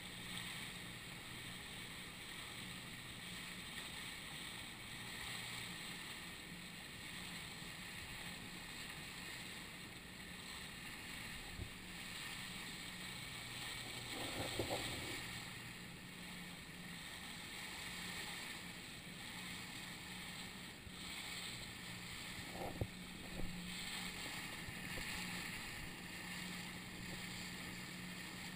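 Rubber boat under way, its engine a steady low hum under an even hiss of water and wind. A short louder rush comes about halfway through, and two sharp knocks come later on.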